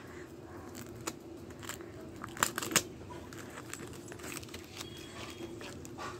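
Plastic photo-album sleeves crinkling and rustling as the pages are handled and turned, with scattered light crackles and a couple of sharper ones a little before halfway.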